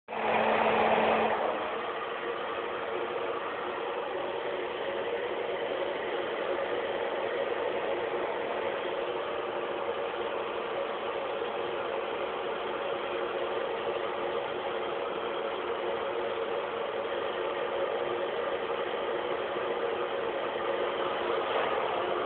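Steady mechanical hum with a few faint steady tones, a little louder for the first second or so.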